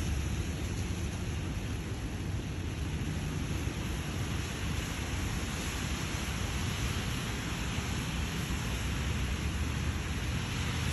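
Steady rain falling, an even hiss with a low rumble underneath that does not let up.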